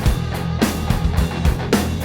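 Rock music with guitar, bass and a steady drum beat, an instrumental stretch without vocals.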